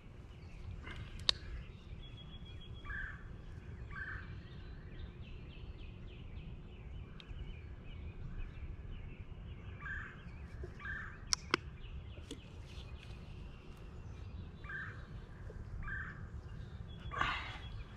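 Faint outdoor ambience: a low steady rumble of wind, with a bird repeating short two-note calls every few seconds. A couple of sharp clicks and a brief rustle near the end.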